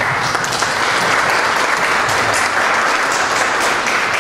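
Audience applauding: a steady round of clapping from many hands.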